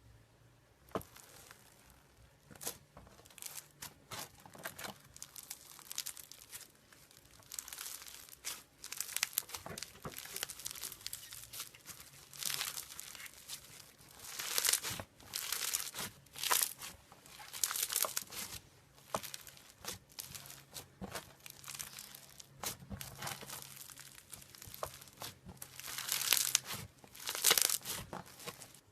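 Slime being squished and stretched by hand, with irregular crackling and popping clicks and louder rushes of crackle every second or two.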